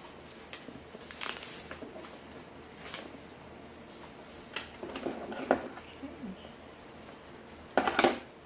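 Handling noise of a new leather tote being unwrapped: protective wrapping rustling and the detachable strap's metal hardware giving light clinks, in scattered short bursts, the loudest just before the end.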